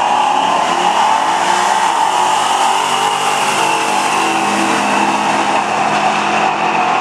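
A 1969 Chevy pickup running on nitrous and a Camaro accelerating flat out side by side down a drag strip. Their engines are loud throughout, and the pitch climbs as they pull away.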